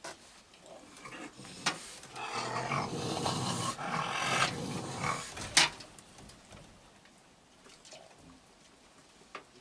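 Raccoons growling for about three seconds in the middle, with a few sharp knocks around it. The loudest knock comes just after the growling.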